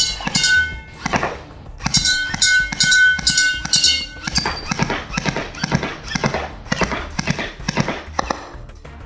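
Background music with a steady beat of sharp clacking percussive hits.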